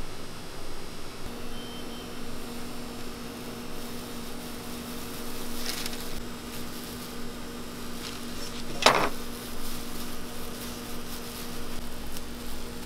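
Steady electric motor hum starting about a second in, with one sharp, loud clack about nine seconds in.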